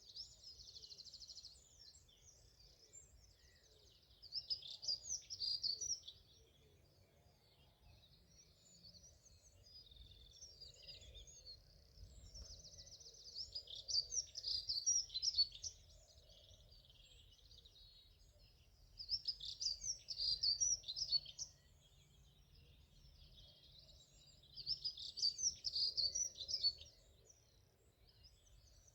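A songbird singing: four loud phrases of high-pitched twittering, each about two seconds long, coming roughly every six seconds, with fainter birdsong in between.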